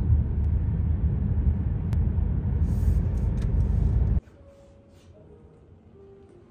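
Loud, low rumbling street and traffic noise, cutting off suddenly about four seconds in.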